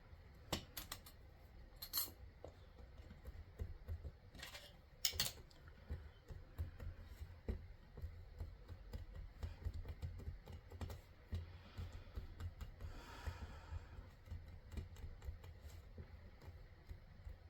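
Faint, scattered light clicks and taps of polymer clay pieces and tools being handled on a work surface, with a few sharper clicks in the first few seconds, over a low steady hum.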